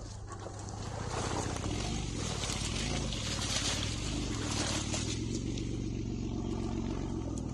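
2008 Mitsubishi Endeavor's V6 engine running steadily as the SUV rolls slowly along a dirt forest trail. A rushing tyre noise on the dirt swells about a second in and eases off after about five seconds.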